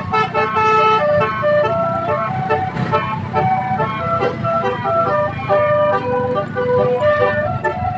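A bus's multi-trumpet telolet (Basuri) musical horn playing a quick melody of held notes that step from pitch to pitch, over the low rumble of the bus engine.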